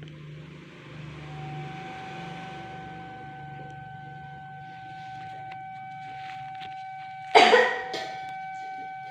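A woman gives one hard cough about seven seconds in, followed at once by a shorter second cough. It is the effective-cough manoeuvre that follows deep breaths, meant to bring up sputum. A faint steady high tone and hiss run underneath.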